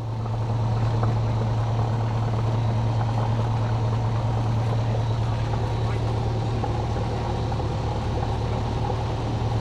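Cessna 172's piston engine and propeller running steadily at low power while taxiing, heard inside the cabin as an even, low drone.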